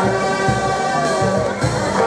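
Brass band music: horns play a melody over a steady drum beat, about two strokes a second.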